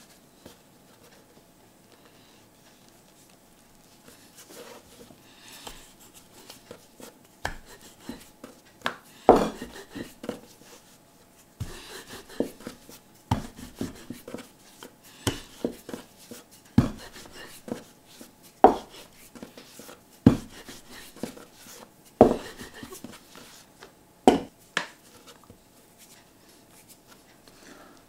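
Wooden rolling pin rolling out small discs of dough on a floured wooden board: soft rubbing and a series of sharp wooden knocks on the board, coming about every two seconds in the second half.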